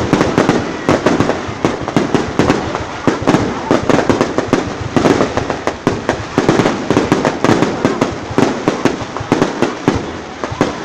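Fireworks display: a dense, continuous barrage of bursting shells, many sharp bangs a second overlapping one another.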